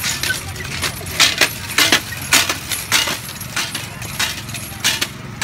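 Footsteps crunching on gravel, about two steps a second.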